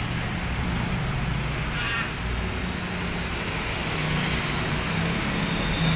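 Steady rumble and hiss of traffic-like background noise with a low hum, and a brief high squeak about two seconds in.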